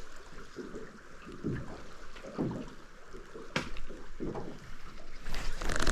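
A small boat on the river: dull low knocks about once a second, with a sharp click partway through, and a rush of wind or water building near the end.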